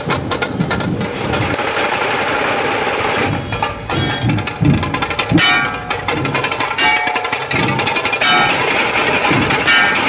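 Procession drums beating a fast, dense rhythm over crowd noise, with short high-pitched notes cutting in several times.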